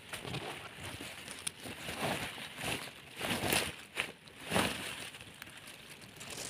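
Dry twigs and leaf litter rustling and crackling as a wire-mesh trap is pulled out from under brush by hand, in a few short swells of noise.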